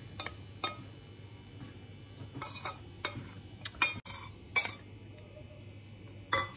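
Metal spoon clinking and tapping against a steel bowl, with light scraping, as chopped coriander and green chillies are knocked out into a bowl of radish paratha filling and stirred in. The clinks are short and scattered, about a dozen, a few louder ones a little past the middle.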